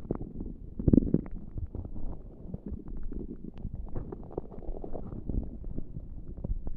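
Human stomach gurgling and rumbling on its own, not pressed on: a run of irregular gurgles and small pops, with the loudest gurgle about a second in.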